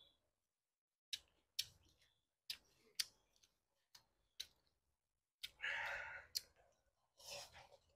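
A person eating stir-fried rice vermicelli with chopsticks: a few scattered quiet clicks as she chews, then a slurp of noodles about five and a half seconds in and a shorter one near the end.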